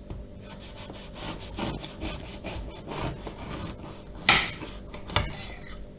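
Kitchen knife sawing back and forth through the crisp crust of a freshly baked white tin loaf, in a quick run of scratchy strokes. Two sharper, louder strokes come about four and five seconds in.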